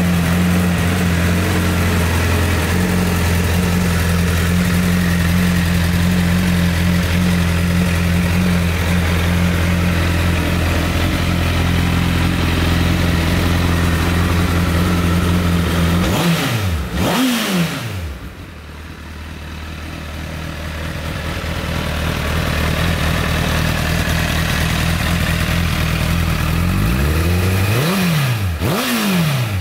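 Honda Fireblade's inline-four engine idling steadily through an Akrapovic silencer. It is blipped twice about sixteen seconds in and twice again near the end, the revs rising and falling sharply each time.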